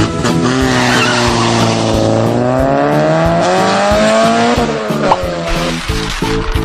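Car engine sound effect with a tyre-squeal hiss, its pitch dipping and then climbing before fading out near the end, over children's background music.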